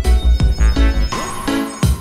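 Electronic background music with a fast, heavy bass beat and sharp drum hits.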